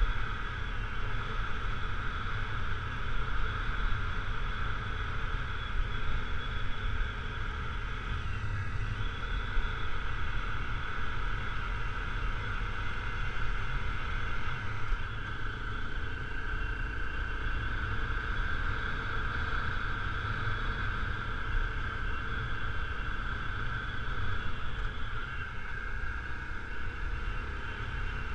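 Honda CRF250L's single-cylinder four-stroke engine running steadily while the bike rides a gravel forest road, heard through an on-board camera with a low rumble underneath.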